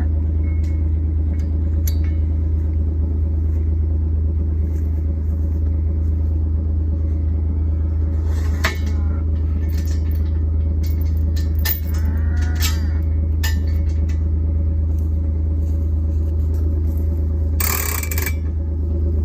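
Farm vehicle engine running steadily with a deep, constant rumble while it unrolls a hay bale, with scattered clicks and a couple of short higher calls over it, and a brief hiss near the end.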